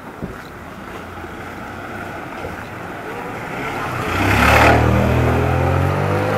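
Street traffic: a car and a motor scooter pass close by, the noise swelling to its loudest about four and a half seconds in, followed by a steady low engine hum as they go past.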